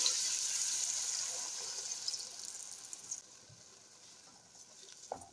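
About two cups of water poured into an enamelled cast-iron pot of browned pork loin: a steady rushing that fades away after about three seconds as the pour ends. A single light knock comes near the end.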